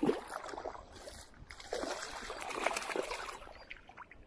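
Water splashing and trickling in irregular bursts, busiest in the middle.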